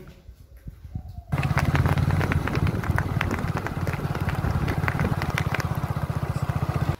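An engine running steadily with a rapid, even pulse, starting suddenly about a second in, with scattered clicks over it.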